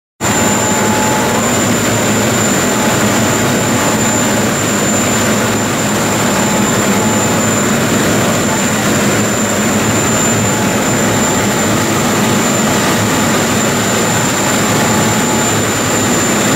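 Fast ferry's engines running at speed on board, a steady loud drone mixed with rushing wind and water noise, with a thin high whine over it. It cuts in abruptly at the start.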